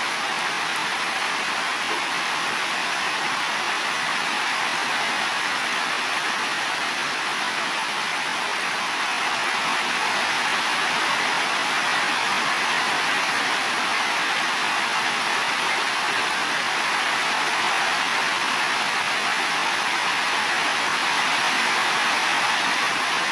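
Heavy rain falling steadily on building roofs: an even hiss, a little louder after about ten seconds.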